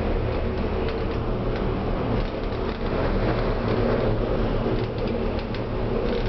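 Steady running rumble and hum inside an aerial tram cabin riding down its cable, with faint light ticks through it.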